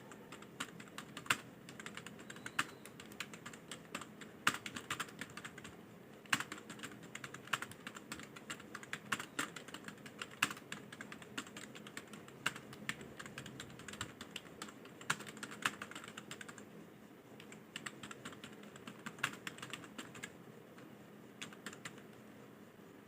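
Computer keyboard being typed on at speed: quick, uneven runs of key clicks, easing off briefly about three-quarters of the way through and again near the end.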